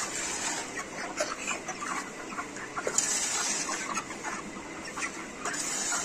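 Broiler chickens clucking around a man who scrapes and heaps dry rice-husk poultry litter with a spade, the blade giving short scratchy scrapes and rustles.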